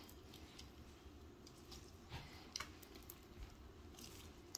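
Glue slime being kneaded by hand: faint squishing with a few short, soft sticky clicks scattered through, the loudest about two and a half seconds in.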